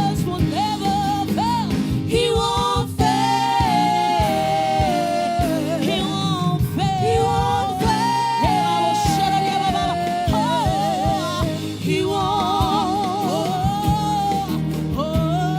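Gospel worship music: singing with vibrato over a steady band accompaniment with drums.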